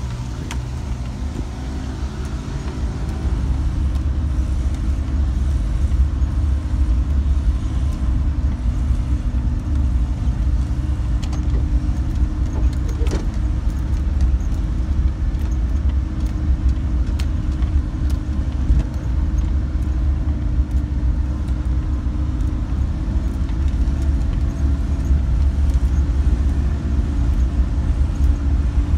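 A car running along a wet road, heard from inside the cabin: a steady low engine and tyre rumble with a few light ticks and rattles.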